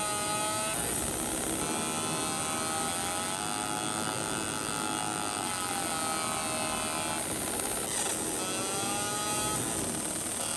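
Laser engraving machine running as it marks a number onto a steel tumbler turned in a rotary attachment: a steady machine hum with whining tones that shift in pitch as the marking goes on.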